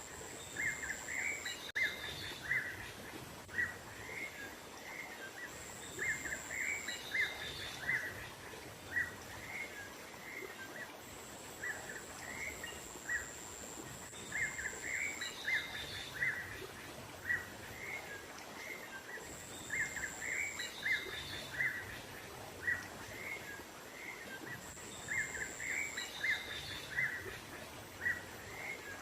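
Small songbirds chirping over and over in quick runs of short, high notes, a lure recording used to call in wild birds. Behind them is a steady outdoor background with a thin, high whine that starts and stops several times.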